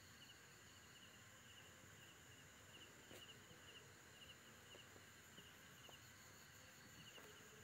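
Faint chirping of night insects: a short, high, cricket-like chirp repeating about twice a second, pausing for a second or so near the end.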